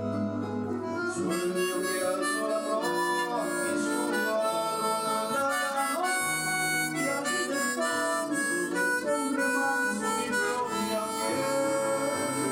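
Diatonic harmonica in C playing a bolero melody in G, with a sustained accompaniment underneath.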